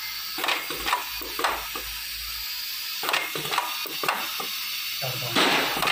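Light mechanical clicks and knocks at irregular intervals over a steady hiss, with a denser clatter near the end.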